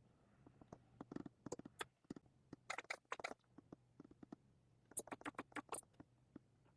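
Faint, light clicking in three short, quick bursts, about a second, three seconds and five seconds in.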